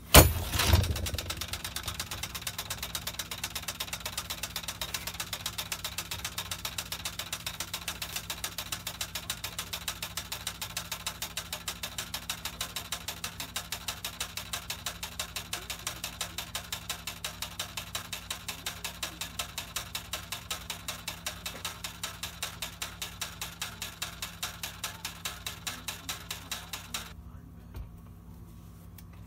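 Spring-wound centrifugal casting machine released with a sharp clack, its arm then spinning with rapid, even clicking that gradually slows and stops about 27 seconds in. The clicking is the machine's normal running noise, here heard on a test spin after new upper and lower ball bearings.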